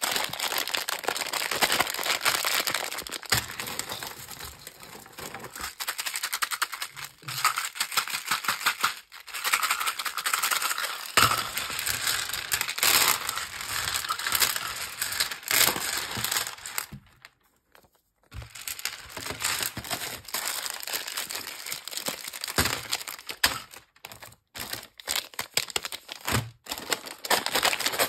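Plastic candy wrappers and sweet packets crinkling and rustling as they are handled and opened, with a short pause about two-thirds of the way through.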